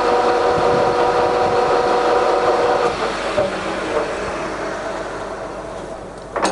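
C6256 centre lathe's headstock gears running the spindle at 525 rpm, a steady mechanical whine. About three seconds in the whine stops and the running noise fades as the spindle slows, with a sharp click near the end.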